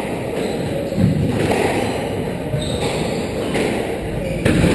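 Squash rally: the rubber ball smacking off rackets and the court walls, with sharper hits about a second in and near the end, and players' footsteps on the wooden floor, over steady hall noise.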